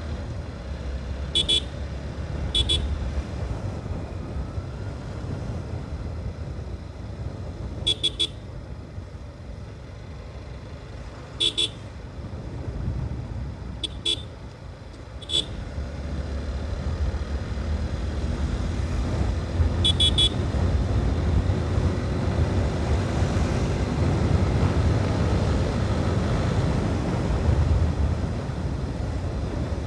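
Horn beeping in short toots, about seven over the first twenty seconds, some in quick pairs, over the steady low rumble of a motorcycle's engine and wind while riding; the rumble grows louder after about sixteen seconds.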